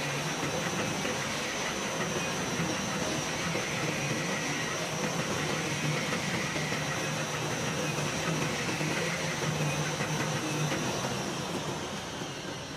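CNC oscillating knife cutting machine running over PET felt: a steady hissing machine noise with a low hum beneath it, easing slightly near the end.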